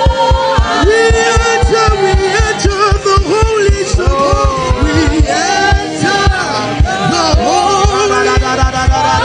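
Gospel worship music: a melody sung or played over a fast, steady low drum beat of about five beats a second.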